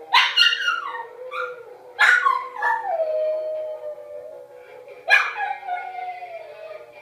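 A small dog howling along to music: three howls, each starting sharply and sliding down in pitch, the middle one the longest.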